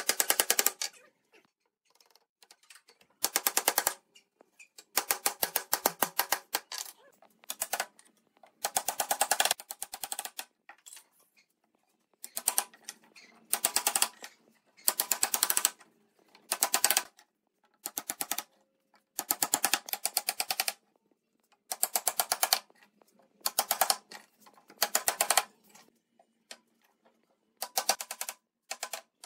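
Hammer knocking pine slats into the rails of a wooden bed guardrail, in quick runs of rapid, sharp knocks separated by short pauses.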